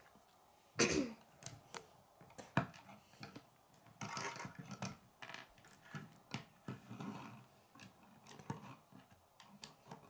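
Plastic K'nex rods and connectors clicking and knocking as they are snapped together and set down on a wooden table. The clicks come irregularly, with louder knocks about a second in and near three seconds in.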